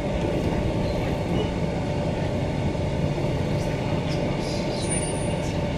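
Queensland Rail EMU electric train heard from inside the passenger car while in motion: a steady rumble of wheels on the rails with a faint, even hum beneath it.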